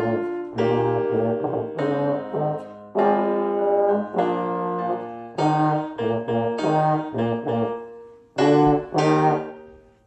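Slide trombone playing a melody of held notes over a piano accompaniment, ending on two loud final notes that fade out.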